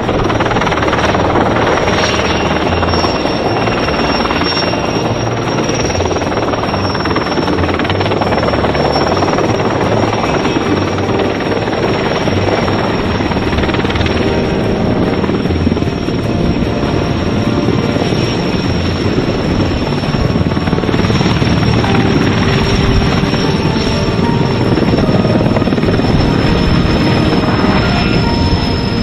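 Erickson S-64E Air-Crane heavy-lift helicopter hovering low and settling to land, its rotor and twin turboshaft engines running loud and steady. A high turbine whine holds throughout and sinks slightly in pitch near the end.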